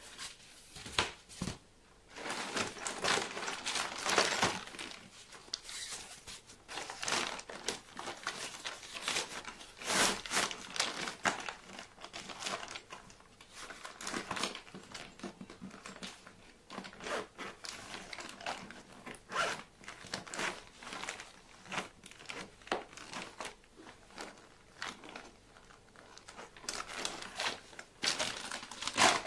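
Foil-lined insulated food delivery backpack being unfolded and handled: irregular crinkling and rustling of the lining and fabric shell, with scattered clicks.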